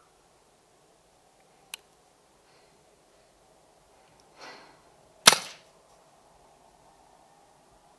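Single air rifle shot: one sharp crack about five seconds in, with a short tail. A small click comes a few seconds before it.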